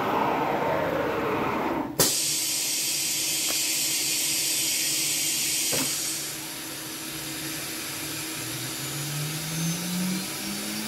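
Compressed air hissing from the PrintNC CNC router's automatic tool changer during a tool change: a falling hiss, then a click about two seconds in and a loud, high air blast lasting about four seconds. Near the end the spindle starts up, its hum rising steadily in pitch.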